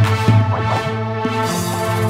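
Deep house electronic music with a steady beat, a pulsing bass and sustained synthesizer tones.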